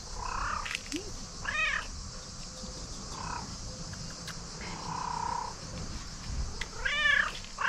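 Domestic cat meowing several times, short calls that rise and fall in pitch, the loudest about a second and a half in and again near the end, with softer ones between.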